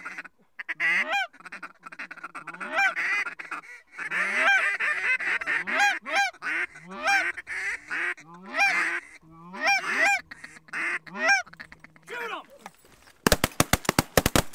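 Geese honking over a steady chorus of a calling flock. About a second before the end, a rapid volley of many shotgun blasts from several hunters firing at once.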